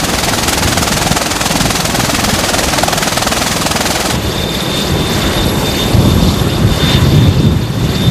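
V-22 Osprey tiltrotor running on deck with its proprotors turning: a loud, steady rushing roar. About four seconds in the sound changes to a lower, pulsing rotor beat with a steady high-pitched turbine whine.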